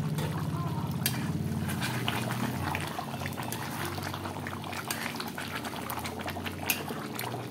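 Thick chicken curry simmering in a karahi, bubbling and popping with many small crackles, while a metal spoon stirs through it. A low hum sounds under it for the first couple of seconds.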